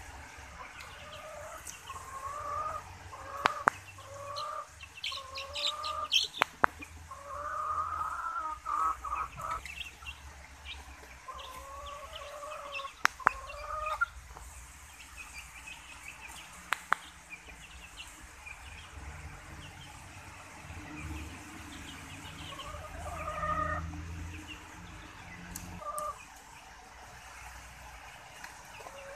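Young bantam and silkie chickens calling: many short, repeated peeps that rise in pitch, with a few sharp clicks among them. The calls thin out for several seconds past the middle, then pick up again near the end.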